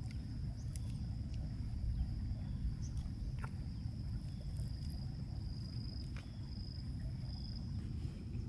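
Outdoor ambience: a steady, high-pitched insect trill that pulses in the second half, over a low rumble, with a few faint clicks.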